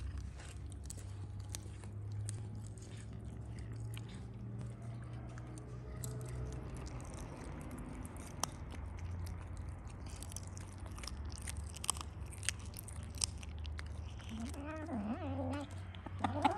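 Cats chewing and crunching raw chicken pieces, a run of small irregular clicks and crunches over a low steady hum. A short animal call sounds near the end.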